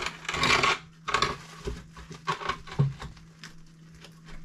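A wooden box made of scrap wood is shoved and scraped into a tight opening in a concrete block wall: several rubbing, grating pushes, the loudest first, then a knock as it seats snugly.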